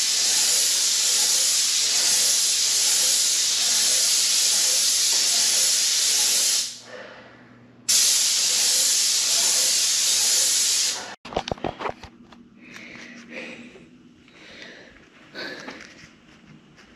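Paint sprayer spraying paint onto a wall with a loud, steady hiss. The hiss breaks off after about six and a half seconds, resumes for about three more seconds, then stops abruptly. Quieter scattered handling noises follow.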